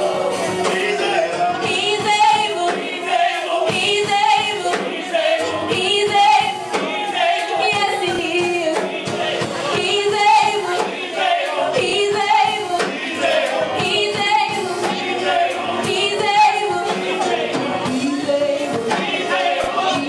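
Gospel music: a choir singing with vibrato over instrumental backing.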